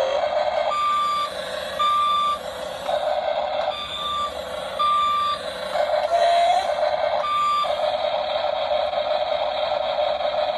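Remote-control toy excavator's electronic warning beeps, about half a second each and roughly a second apart with pauses, over the buzzing whir of its motors, which starts and stops and rises briefly in pitch about six seconds in.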